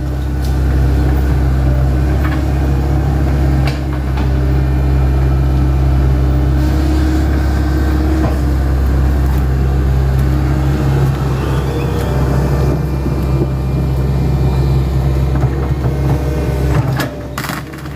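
Hitachi Zaxis 110 excavator's diesel engine running steadily at working revs, with a few short knocks of the machine at work and a brief drop in engine level near the end.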